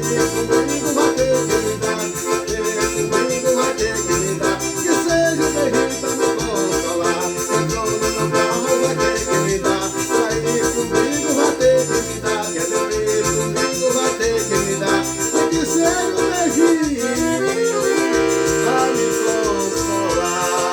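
Forró music: an accordion playing over a steady bass and drum beat, settling onto long held chords near the end.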